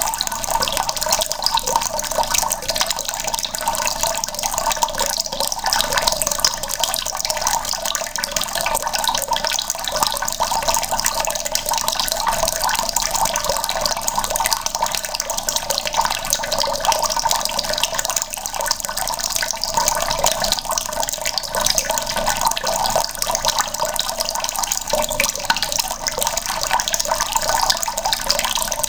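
Water running steadily from a tap and splashing into a bucket, a continuous even splashing stream.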